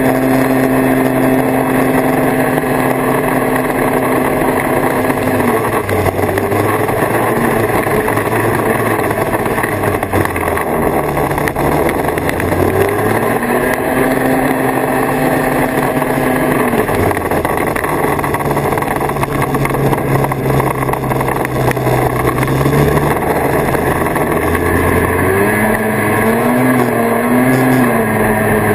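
A 1979 Kawasaki Invader 440 snowmobile's two-stroke engine running under way, its pitch dropping and climbing again several times as the throttle is eased off and opened. Near the end the pitch climbs and wavers.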